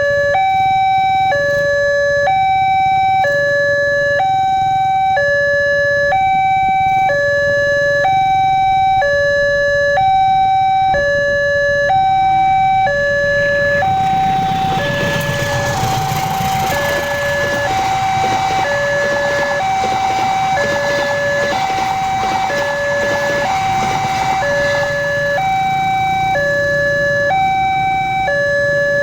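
Railway level crossing warning siren sounding a two-tone hi-lo alarm, switching between two pitches a little under once a second. About 14 seconds in, a broad rushing and rumbling noise, typical of a passing train, rises over the siren for about ten seconds and then fades while the siren keeps going.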